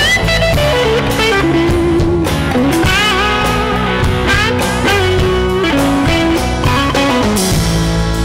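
Live blues-rock instrumental passage: an electric guitar plays lead lines with bent, gliding notes over a moving electric bass line.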